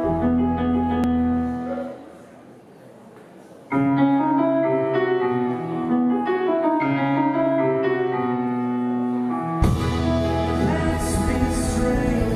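Live band song intro: a Nord Stage keyboard and an accordion hold sustained notes and chords, which fade out briefly about two seconds in and come back just before four seconds. Near ten seconds the drums and cymbals come in with the full band.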